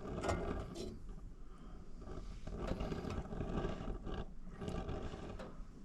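A person eating from a pan with a fork: short scrapes and clicks of the fork, and chewing, over a steady low rumble.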